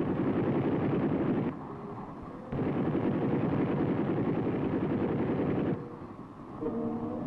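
Door gunner's machine gun firing in two long bursts, the first about a second and a half long and the second about three seconds, with a short break between them.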